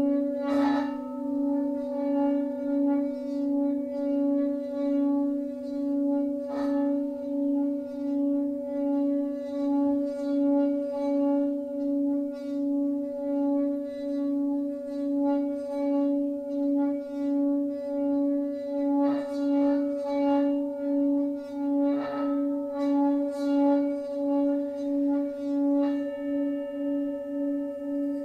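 Himalayan singing bowl drone held steady with a slow, even wobble in loudness, its overtones ringing above, with a few sharp taps at intervals. Near the end a second, higher-pitched bowl comes in.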